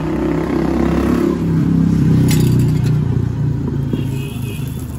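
A motor vehicle's engine running close by, its pitch sliding down and then holding low, loudest about halfway through as it passes. A brief sharp clink comes about two seconds in.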